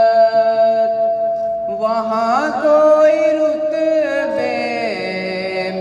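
A young man singing a naat into a microphone without words, drawing out long held notes. He holds one note, glides up about two seconds in into a second long note, then falls to a lower pitch near the end.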